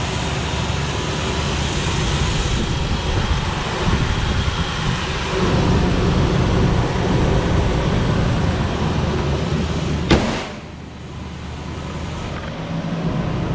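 Ford Explorer engine idling steadily, with its new alternator and belt running quietly and the old alternator-bearing noise gone. About ten seconds in there is a sharp click, and after it the idle sounds quieter.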